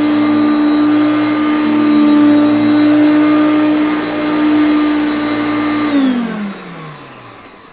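Hoover Concept One upright vacuum cleaner running at a steady pitch, then switched off about six seconds in, its motor winding down with a falling whine.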